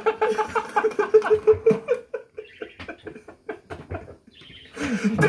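Voices from an animated cartoon played through a TV's speakers. For the first two seconds a voice rapidly repeats one held note, then comes a choppy run of laughing sounds and more voice after a brief lull.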